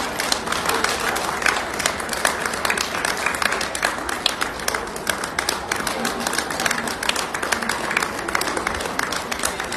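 Audience applauding: dense, steady clapping with voices mixed in.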